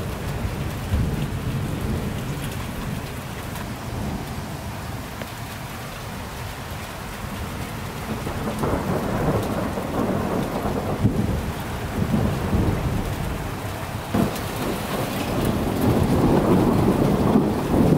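Thunderstorm: steady rain with rolling thunder rumbling, the thunder growing louder in the second half.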